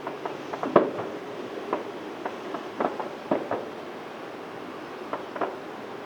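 Aerial fireworks shells bursting: a string of irregularly spaced bangs, some in quick pairs, each with a short ringing tail, over a steady background hiss. The loudest burst comes about three-quarters of a second in.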